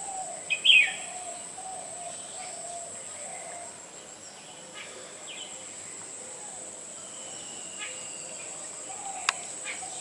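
Black-hooded oriole calling: a loud, harsh downslurred call about half a second in, then fainter calls and a whistled note later. Under it run a steady high insect buzz and a row of low repeated bird notes, with a sharp click near the end.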